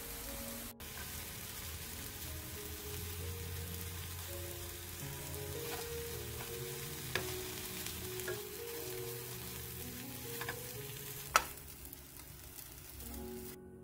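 Egg-coated napa cabbage rolls sizzling as they pan-fry in oil, browning side by side. Metal tongs click a few times as the rolls are turned, the loudest click about eleven seconds in. Soft background music runs underneath.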